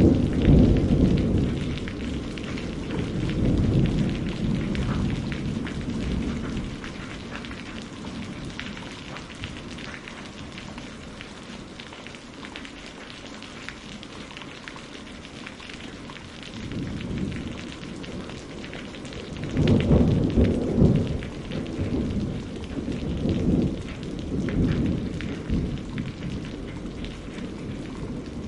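Steady rain falling with a fine patter, and low rolls of thunder rumbling at the start and several more times in the last third.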